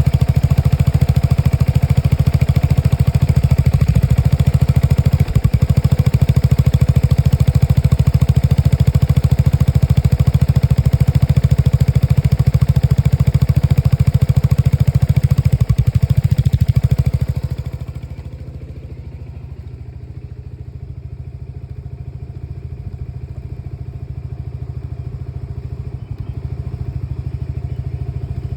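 Lexmoto Nexus 125cc scooter engine running. It is loud at first and drops to a quieter, lower running about 17 seconds in, then creeps back up slightly. The owner reports a misfire fault in this engine.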